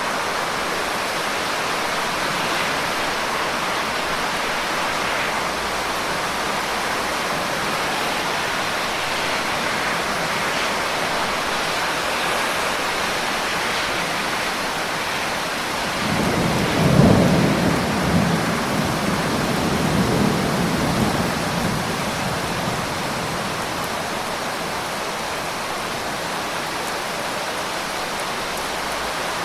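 Thunderstorm: steady rain hissing, with a roll of thunder about halfway through that rumbles low for several seconds and dies away.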